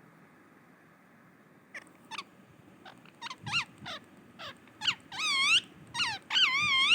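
Pet parrot giving a run of short, sweeping whistled calls that start about two seconds in and grow louder, ending in two longer wavering calls, the loudest.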